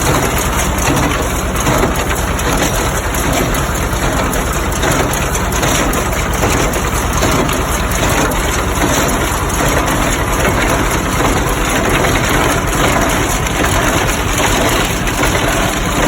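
A 1952 John Deere A's two-cylinder engine running steadily under load while a 1960 John Deere 14T baler works hay, its mechanism packing the hay in a continuous loud clatter.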